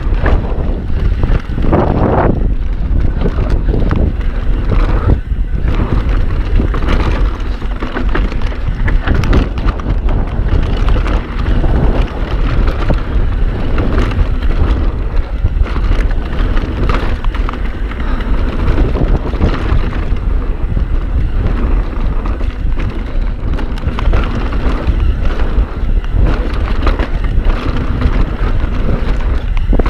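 Mountain bike riding fast down a dirt trail: heavy wind buffeting on the GoPro's microphone over the rumble of the tyres, with frequent clicks and rattles from the bike over the rough ground.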